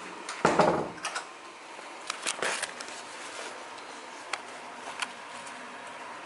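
A hotel room door thuds shut, the loudest sound, followed by several separate sharp clicks and small knocks over a faint steady room hiss.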